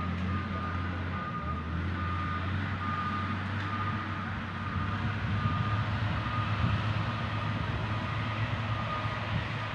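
Motor grader's diesel engine running steadily, with its reversing alarm beeping over it at a regular pace, about once a second.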